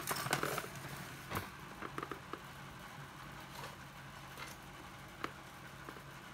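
Scattered light clicks and knocks of hard tool parts and cases being handled, most of them in the first couple of seconds, over a faint steady hum.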